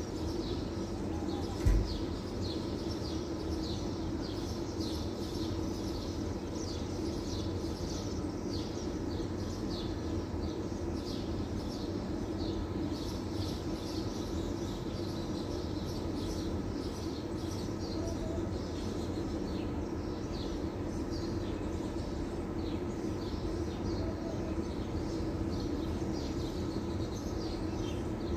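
Small birds chirping rapidly and continuously over a steady low hum, with a single low thump about two seconds in.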